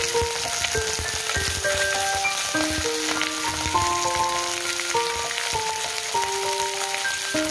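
Whole sea bream and ginger slices pan-frying in oil in a nonstick frying pan, with a steady crackling sizzle. A simple melody of background music plays over it.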